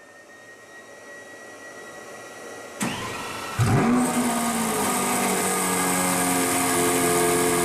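Lamborghini Veneno Roadster's V12 engine starting: a click, then about three and a half seconds in it fires with a quick rising rev flare and settles into a steady fast idle.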